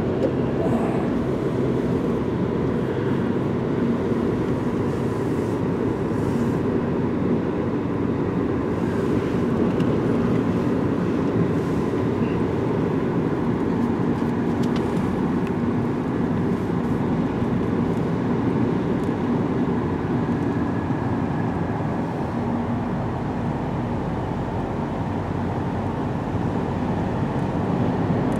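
Steady road noise heard inside a moving car's cabin: tyres on wet pavement and the engine running at cruising speed.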